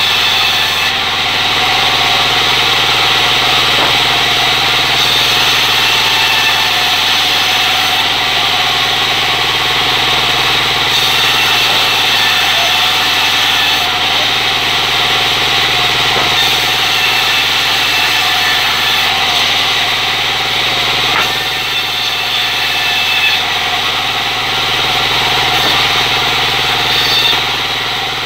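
Circular saw machine running steadily, its blade ripping sengon wood, with a continuous whine and hiss and no break.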